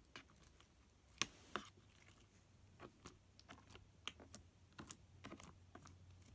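Fingers poking and pressing Flarp noise putty, giving faint, irregular sticky clicks and small pops as the putty is pushed in and released, the loudest about a second in.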